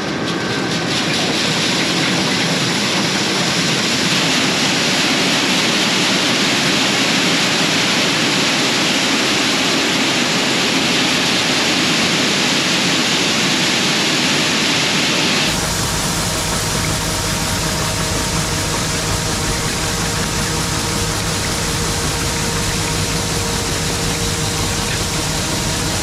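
Shelled corn pouring from a grain auger into a semi grain trailer over the steady running of the machine's engine, a loud rushing hiss. About halfway through the sound shifts abruptly to a deeper rumble with a steady hum.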